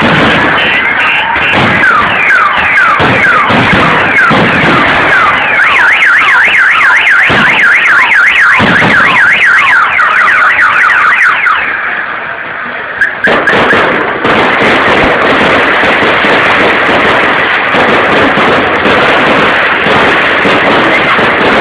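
Fireworks display: many shrill whistling fireworks sliding up and down in pitch over bangs. After a brief drop about twelve seconds in, it gives way to a dense, steady crackling.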